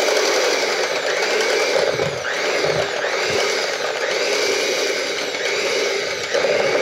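Electric hand mixer running steadily, its beaters whipping a stick of softened butter in a bowl, the tone rising and falling slightly about once a second.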